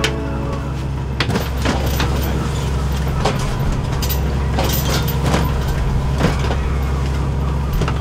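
Fishing boat's engine running with a steady low drone, over irregular sharp knocks and clatter of crabs and gear being handled on deck.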